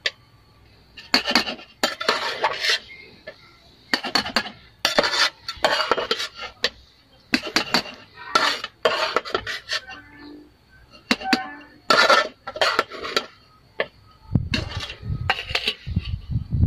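A metal serving spoon scraping and clinking against a metal cooking pot and steel plates as cooked rice is scooped out and served, in short repeated strokes with brief pauses between them.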